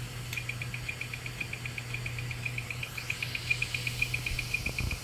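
Malfunctioning hard drive running with its cover off: a fast, even ticking at about ten a second from the read/write head arm, over the steady hum of the spinning platters.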